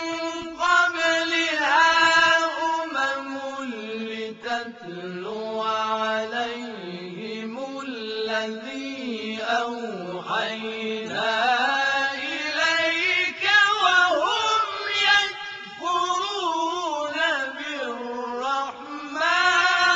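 A male vocal quartet chants Qur'anic recitation in chorus, drawing out long melismatic notes whose pitch bends up and down, with brief breath pauses between phrases.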